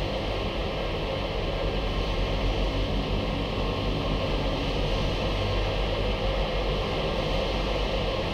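Automatic car wash machinery running with a steady, even noise and a low rumble throughout.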